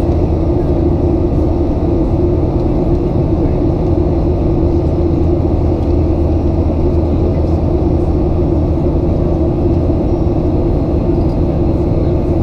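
Steady cabin noise inside a Boeing 737-900 climbing out after takeoff: the even drone of its CFM56-7B turbofan engines and the rush of air past the fuselage, with a low hum underneath.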